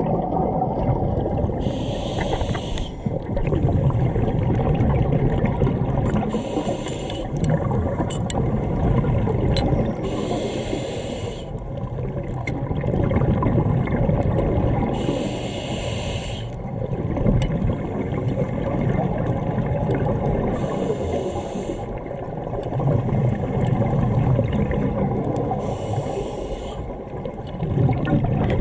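Scuba diver breathing through a regulator underwater: a hiss with each inhale, about every five seconds, and a low bubbling rumble of exhaled bubbles in between.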